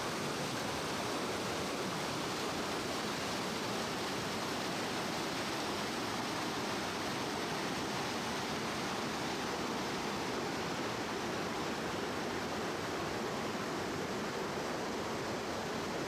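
A canyon stream rushing and babbling steadily, an even noise of running water with no breaks.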